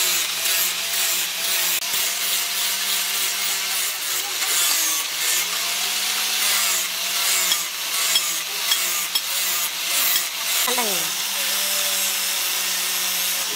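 Electric angle grinder fitted with a sanding disc, running steadily with a hum while the wooden handle of a cleaver is pressed against it, giving a rasping sanding noise. The motor's pitch sags sharply once about eleven seconds in and then recovers.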